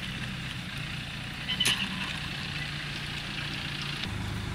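Steady low hum of a running motor, with one sharp clink about a second and a half in.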